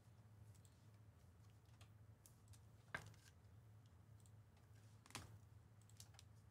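Near silence over a low steady hum, broken by scattered faint clicks of a computer keyboard, two of them sharper, about three and five seconds in.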